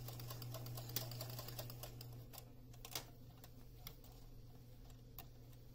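Electric sewing machine stitching: a fast, even needle clatter over a steady motor hum, which dies down about two seconds in, leaving a few separate clicks.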